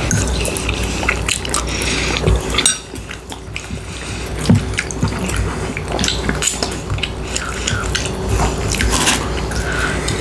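Close-miked wet eating sounds: chewing, lip smacking and sucking on saucy ribs, full of quick sticky clicks, with a quieter stretch about three seconds in.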